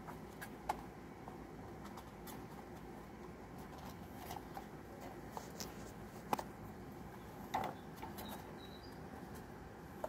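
Scattered light taps and scuffles over a faint steady hum, kittens moving about in a wire cage, with three sharper knocks, the loudest about six seconds in.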